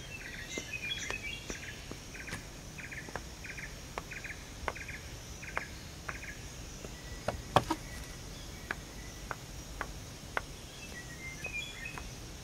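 Outdoor forest ambience of chirping insects and birds: short pulsed chirps repeat about twice a second through the first half, and a few bird calls come near the end. Scattered light clicks sound throughout, the loudest about halfway through.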